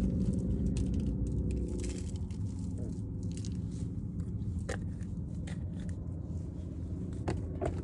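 Hands working on a fish wrapped in aluminium foil: foil crinkling and scraping, with a few sharp clicks from a spice jar, over a steady low hum.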